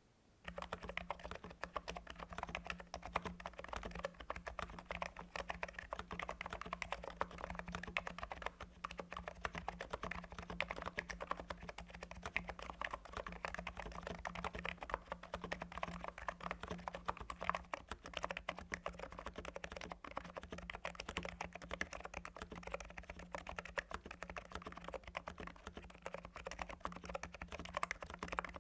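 Continuous typing on a NIZ x87 tenkeyless keyboard with electro-capacitive (Topre-clone) switches, many keystrokes a second, starting just after the beginning.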